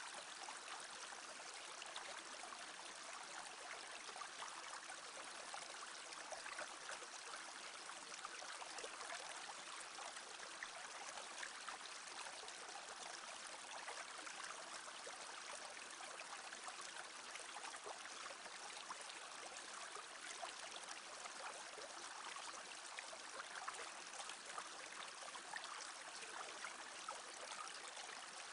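Small brook babbling steadily.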